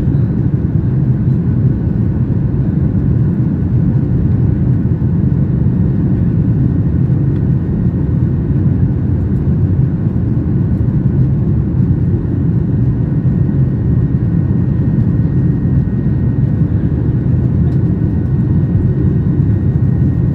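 Cabin noise of a Boeing 737-800 climbing out after takeoff: its CFM56 jet engines and the airflow give a deep, steady rumble with a faint, high, steady whine above it.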